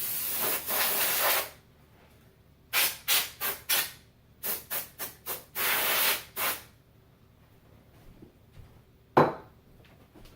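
Compressed air blasting dust out of a computer case in hissing bursts: one long blast, a run of short quick puffs, then another long blast. A single sharp knock near the end.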